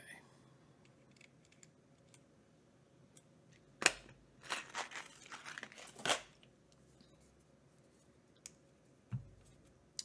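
Hands handling tools and bits on a workbench: a sharp click about four seconds in, then about two seconds of rustling and crinkling with small clicks, and a short thump near the end.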